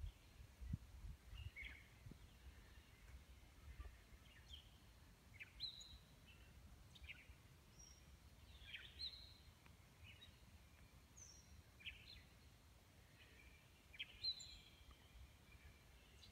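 Faint outdoor ambience with scattered bird chirps: short high notes, some sliding down in pitch, every second or two, over a low faint rumble.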